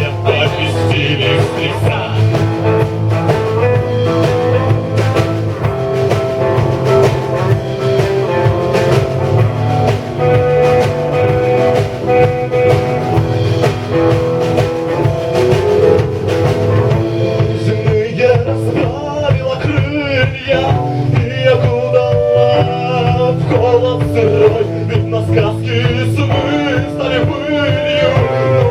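A rock band playing a song live: drum kit, bass guitar, electric guitar and keyboards. Steady drum hits run under a strong bass line. From about two-thirds of the way in, a wavering, bending melodic line plays on top.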